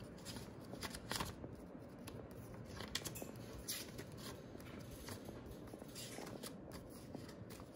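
Paper calendar pages in a ring-bound pocket Filofax being turned one after another by hand, giving several faint rustles and flicks.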